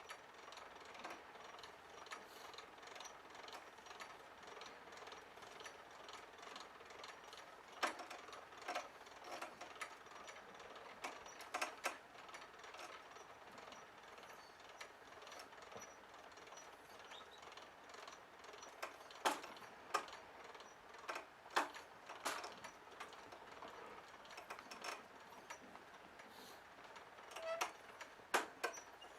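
A hoist lifting a wheelbarrow loaded with sand: faint, steady mechanical ticking, with scattered louder clicks and knocks, several close together about eight, twenty and twenty-eight seconds in.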